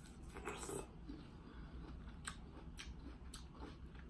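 Fork working in a plastic container of cut cantaloupe: a short scrape about half a second in, then a few light, separate clicks of the fork against the plastic.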